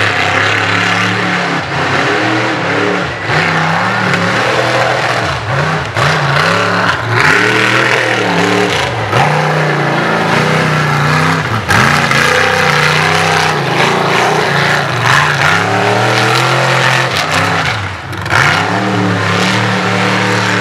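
Mega truck's big engine running hard through a mud bog pit, the revs repeatedly dropping and surging back up as the tyres bite and spin.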